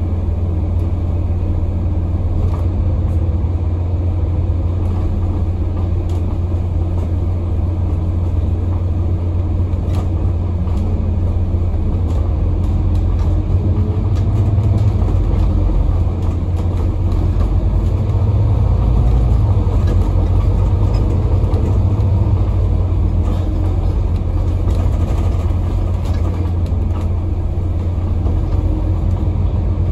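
Scania N250UD double-decker bus under way, heard from on board: a steady deep drone from its five-cylinder diesel engine with road noise and occasional light rattles, growing a little louder about halfway through.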